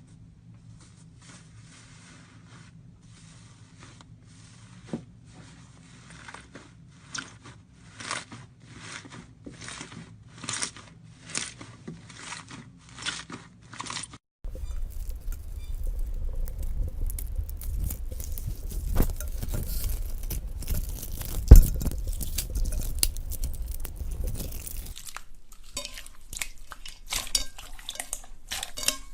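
Slime being handled for ASMR: first a quiet series of sharp crackling clicks, about one or two a second; then, about halfway through, a louder, denser squishing; and near the end, separate clicks again.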